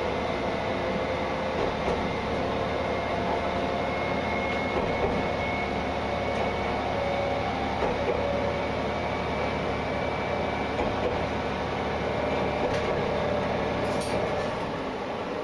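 Diesel railcar running steadily along the track, heard from the driver's cab: a continuous engine drone and wheel-on-rail rumble, with a faint high whine for a few seconds early on.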